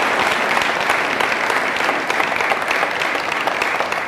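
Audience applauding: a dense, steady crackle of many people clapping together.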